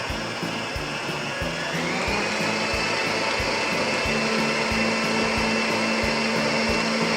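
Electric mixer beating butter, sugar and eggs, its motor whine rising in pitch and getting louder about two seconds in as it speeds up. Background music with a steady beat plays underneath.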